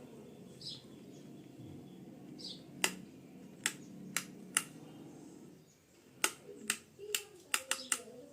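Sharp clicks and taps from handling, a few spaced out and then several in quick succession near the end, over a faint low hum.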